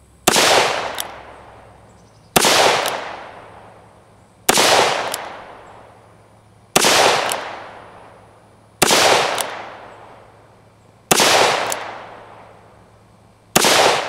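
Taurus Tracker revolver in .17 HMR firing seven single shots, one about every two seconds, each followed by an echo that dies away over a second or so.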